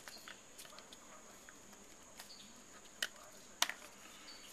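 Small, faint clicks and ticks from handling a plastic ribbon-cable connector that has been cracked open, with two sharper clicks about three seconds in.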